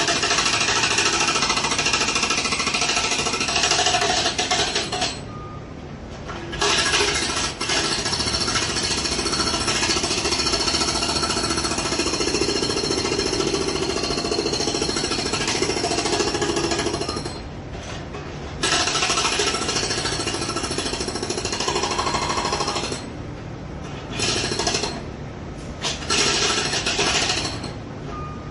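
Jackhammer hammering in long continuous runs. It pauses for about a second and a half some five seconds in, again for about a second around seventeen seconds, and breaks off briefly a few more times in the last six seconds.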